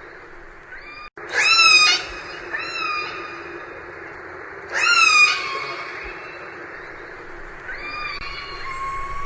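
Orca (killer whale) calls recorded underwater: four high, gliding calls that sweep up and then bend down, the two loudest about a second and a half in and about five seconds in, over a steady hiss.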